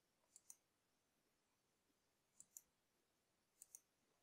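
Near silence with faint computer mouse clicks: three quick double ticks, about half a second, two and a half and three and three-quarter seconds in.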